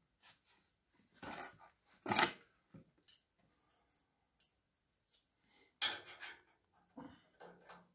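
Irregular metallic clinks and rattles of a spanner and bolts being handled at a steel swivel caster's mounting plate, loudest about two seconds in and again near six seconds.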